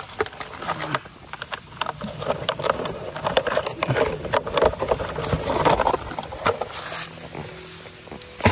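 Irregular crackling and clicking of a thin plastic bottle being handled, with hands scraping and rustling in dry soil and leaves.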